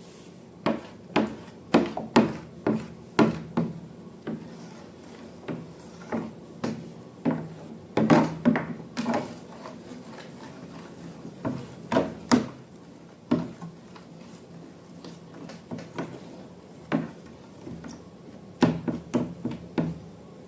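Hands working slime and balloon materials: irregular sharp clicks and taps with some rubbing, one or two a second and sometimes in quick clusters, the loudest about eight and twelve seconds in.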